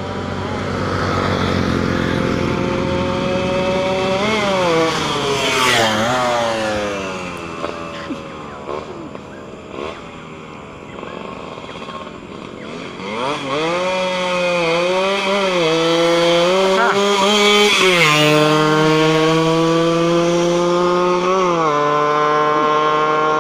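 Two-stroke single-cylinder engine of a Yamaha RX-King motorcycle with an underslung exhaust, accelerating hard through the gears. The pitch climbs and then drops at each gear change, twice in the first six seconds; it dies down in the middle, then climbs again through several more gear changes.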